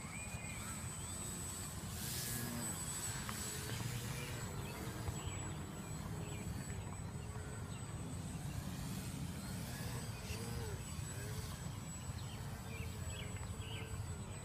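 Model airplane's motor and propeller buzzing as it flies around, its pitch rising and falling again and again with throttle and passes. A low rumble of wind on the microphone runs underneath.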